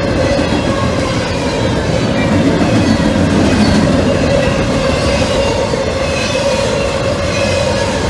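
Double-stack intermodal freight train rolling past at a level crossing: a steady rumble of steel wheels on rail with a clatter over the rail joints.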